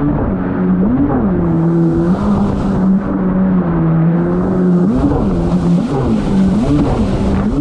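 Kawasaki STX-160 jet ski's four-cylinder four-stroke engine running under way, its revs surging and dropping sharply several times as the ski skips over choppy water. Wind and water spray rush over it in stretches.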